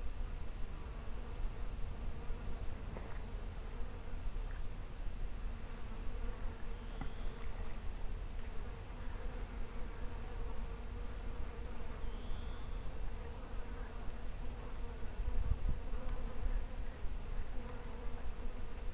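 Steady insect buzzing, an even hum that holds the same pitch throughout, over a low rumble of wind on the microphone.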